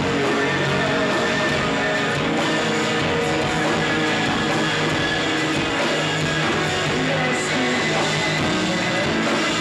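Shoegaze band playing live: electric guitars strummed together over bass in a dense, unbroken wall of sound.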